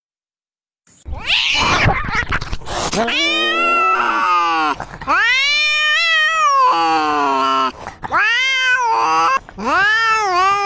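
Tabby cat yowling: four long, drawn-out meows, each rising and then falling in pitch, after a brief burst of rough noise.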